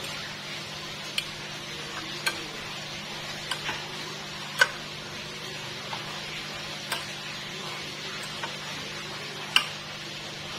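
Metal fork stirring and tossing cooked instant noodles in a ceramic plate, with several sharp clinks of the fork against the plate, the loudest about halfway through and near the end, over a steady faint hum.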